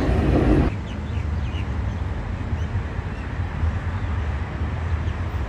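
Guangzhou tram heard from inside as it runs, a loud low rumble that cuts off under a second in. A quieter steady low outdoor rumble follows, with a few faint bird chirps.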